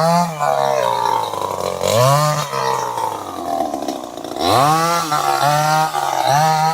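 Chainsaw engine revved in repeated throttle blips, its pitch rising and falling again and again. It drops to a lower, rougher run around the middle, then revs up sharply again.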